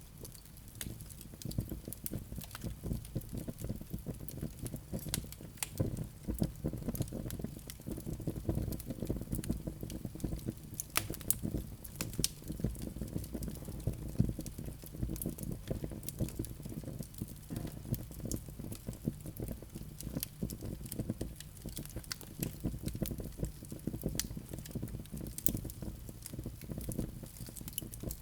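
Log fire crackling, with frequent irregular sharp pops and snaps over a steady low rumble of the flames.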